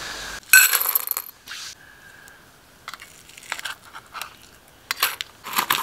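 Puppy food being prepared in a stainless steel bowl. About half a second in there is a loud crunching rattle. After that come scattered clicks and scrapes of a spoon against a tin as wet food is scooped onto the kibble.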